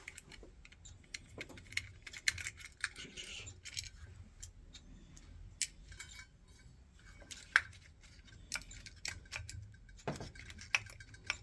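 Irregular small clicks and metallic taps of hand work on a motorised heating valve head as a stuck part of its motor assembly is worked loose, with a sharper click about seven and a half seconds in.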